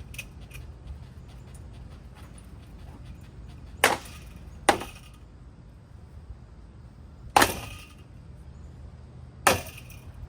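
Four sharp cracking strikes on a cheap hugger ceiling fan being smashed, two close together and then two more a few seconds apart, each with a brief ring. A steady low hum runs underneath.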